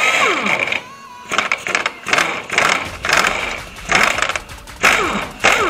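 BJC 1550 pneumatic impact wrench hammering on a wheel nut in about eight short bursts, some ending in a falling whine as it spins down. The bolt simply turns along with the nut, so it does not come undone.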